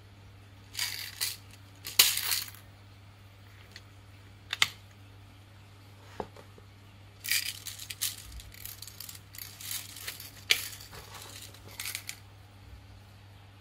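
Plastic toy vending-machine candy dispenser: sharp clicks as its buttons are pressed and small hard candy balls drop and rattle into its plastic tray, then a run of light clattering as the candies are shaken out.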